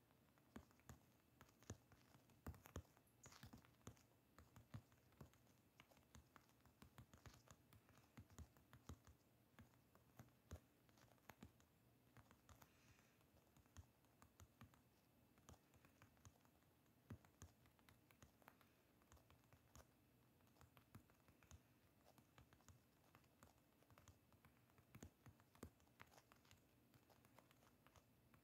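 Faint, irregular taps of typing on a smartphone's on-screen keyboard, several a second with short pauses, over a low background hum.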